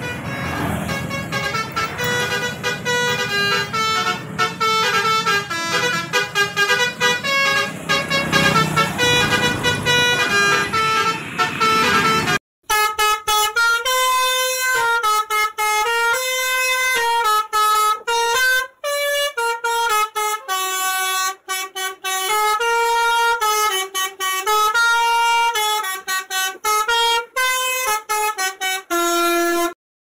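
Telolet musical horn of an odong-odong ride vehicle playing a fast tune of short stepped notes. Traffic noise runs underneath for the first dozen seconds; after a brief dropout about 12 seconds in, the horn tune sounds clearer.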